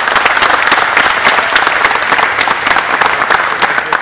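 A small crowd applauding in a large, bare room, with dense steady clapping that cuts off suddenly at the end.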